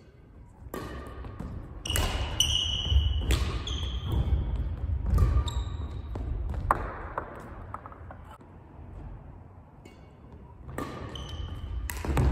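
Badminton singles rally: sharp racket strikes on the shuttlecock and footfalls on the wooden court floor, with short shoe squeaks. The play goes quieter for a couple of seconds before a burst of strikes and footwork near the end.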